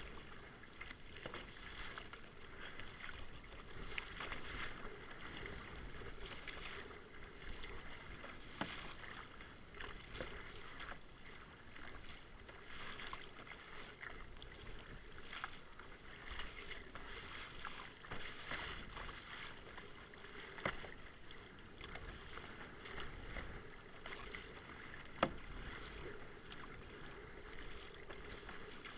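Kayak paddle strokes in choppy sea water: the blades dip and splash every second or two, with water washing along the hull. Two sharp knocks in the second half.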